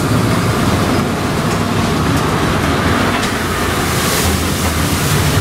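Amphibious duck boat entering the water: its engine runs steadily under a rush of water and spray against the hull, which swells about four seconds in.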